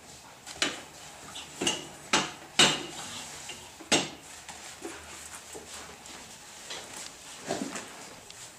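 Clothes hangers clinking and clacking against the wardrobe rail as garments are pulled off them: five sharp clicks over the first four seconds, then a few softer knocks near the end.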